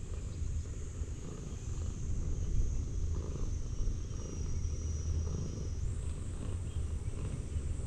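A domestic cat purring, a low continuous rumble, while it is stroked by hand.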